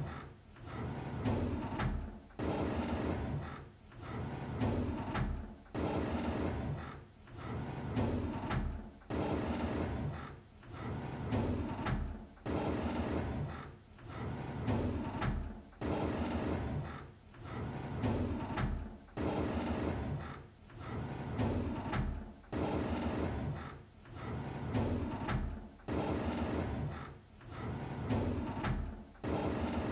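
A drawer being pulled open, over and over about every two seconds: each time a sharp click, then a rumbling slide that fades out.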